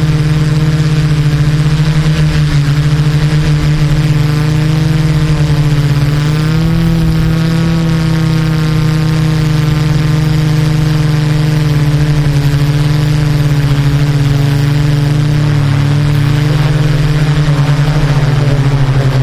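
An engine running steadily at low speed, its pitch lifting slightly about a third of the way in and dipping briefly near the end.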